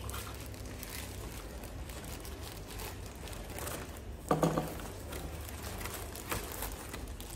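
Plastic packaging bags crinkling and rustling as they are handled and cut open with a utility knife, with a brief louder sound about four seconds in.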